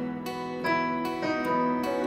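Digital piano playing a slow song introduction, single notes and chords struck in turn about every half second.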